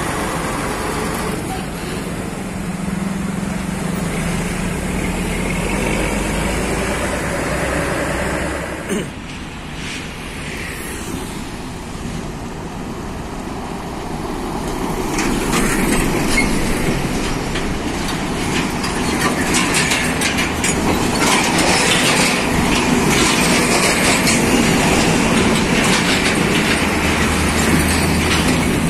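Heavy diesel trucks and motorbikes passing close by on a road: engines running and tyres on the tarmac. The sound changes abruptly about nine seconds in, and from about fifteen seconds it grows louder, with a dense rattling clatter.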